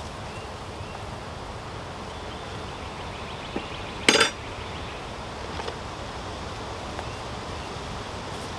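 Honeybees from a package of bees humming steadily, with a short metallic clink about four seconds in as small tools such as scissors are handled, and a few fainter clicks around it.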